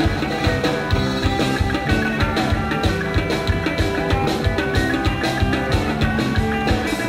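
Live rock band playing: electric guitars, keyboard and drums, with a steady, driving drum beat.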